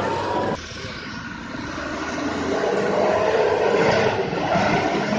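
Diesel engine of a loaded light truck labouring through deep mud, building up over the first couple of seconds and then holding strong. In the first half-second, before a cut, a wheel loader's engine sounds with a rising whine.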